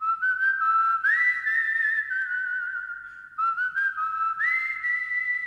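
High whistled notes, two pitches sounding together, held with a slight waver and stepping up in pitch about a second in and again near the end.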